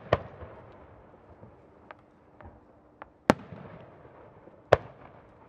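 Japanese aerial chrysanthemum (kiku) firework shells bursting: three loud booms, one right at the start, one about three seconds in and one near the end. Each boom trails off in a fading, echoing rumble, with a few fainter pops between them.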